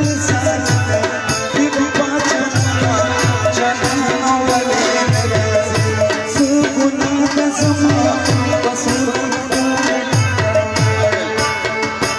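Loud live music: a drum beating a repeating rhythm under a held melodic line.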